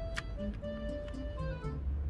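Background music: a light melody of short stepped notes over a steady low bass, with a sharp tick just after the start.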